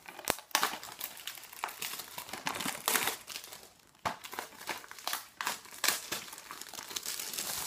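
Plastic shrink-wrap being torn and peeled off a Blu-ray case, crinkling and crackling irregularly, with a short lull about four seconds in.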